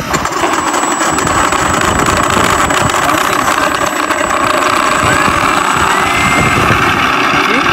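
An ESS-Air V2.0 sound unit plays a simulated piston aircraft engine at a steady idle. The sound comes through a vibration exciter meant to be stuck down on the foam of an RC P-47, and it is not yet stuck down firmly enough to give the full sound.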